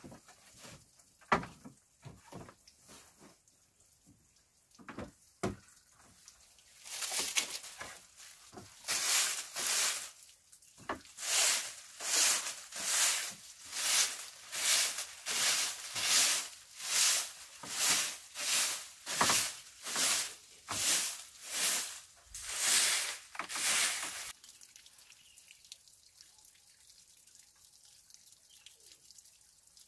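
Grass broom sweeping a wooden plank floor in rhythmic swishes, about one and a half strokes a second, after a few scattered knocks. The sweeping stops near the end, leaving only faint background.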